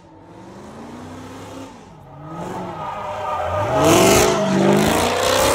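Supercharged 6.2-litre Hemi V8 of a Dodge Charger Hellcat under hard throttle while drifting: the revs climb over a couple of seconds and then hold high and loud, with tyre noise from the spinning rear wheels when the engine peaks, about four seconds in.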